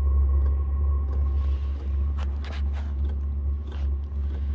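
Chinese 5 kW portable diesel air heater running just after start-up on kerosene: a steady low rumble from its combustion and silenced exhaust, with a fan whine that fades about halfway. A few sharp clicks come in the second half.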